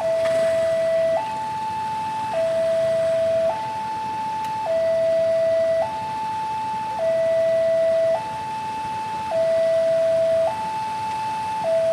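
Railway level-crossing warning alarm sounding: an electronic two-tone hi-lo signal that switches between a lower and a higher tone about every second, the lower tone the louder. It warns that a train is approaching the crossing.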